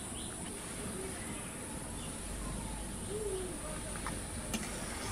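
Steady high-pitched drone of crickets, with a bird's short chirp at the start and two light clicks of a metal spatula against the aluminium pan near the end.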